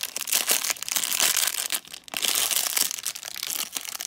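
Shiny foil blind-bag wrapper crinkling and crackling as it is handled and torn open, with a short pause about two seconds in.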